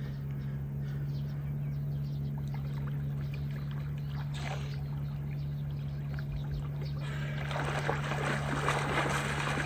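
Shallow river water splashing and sloshing around people wading, louder from about seven and a half seconds in, over a steady low hum.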